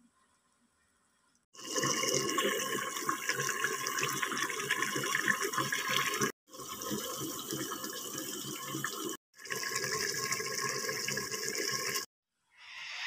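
Beef rib and carrot stew boiling hard in an electric pressure cooker's open inner pot, a dense bubbling rush as the soup reduces and thickens. It starts about a second and a half in and cuts off abruptly twice before ending.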